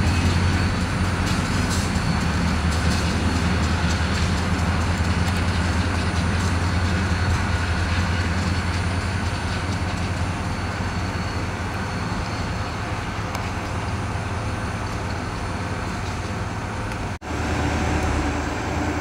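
EMD GP40-2 diesel-electric locomotive's turbocharged 16-cylinder engine running with a steady low drone as it slowly pulls loaded stone hopper cars. Wheel and car noise sits under the engine sound, which eases slightly over time, and the sound drops out sharply for a moment near the end.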